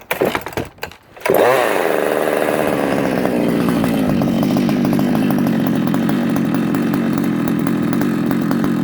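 BP-1 vertical chainsaw's two-stroke engine being started: about a second of knocks and rattles, then the engine catches and runs steadily, its speed settling just after it fires.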